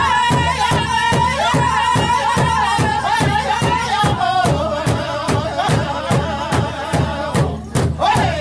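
Powwow drum group singing high, held tones over a big drum struck in a steady, even beat. The voices slide down about four seconds in, break off briefly near the end, then come back in.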